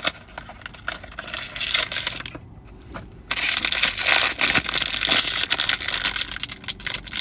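Blind-box packaging being crushed and crinkled by hand: light crackling at first, then a louder, denser crinkling from about three seconds in.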